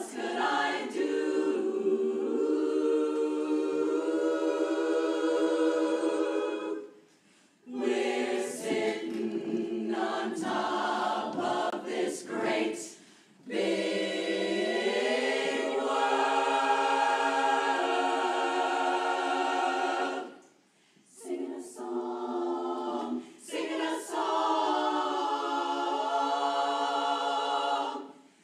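Women's barbershop chorus singing a cappella in close harmony: long held chords in phrases separated by a few short breaks.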